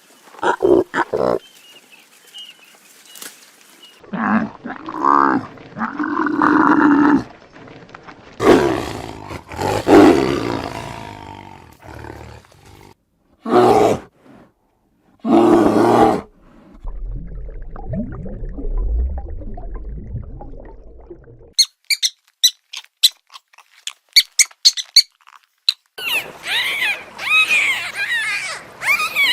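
A run of different animal calls one after another: several loud roaring calls, a long low rumble, then rapid high squeaks and warbling calls near the end.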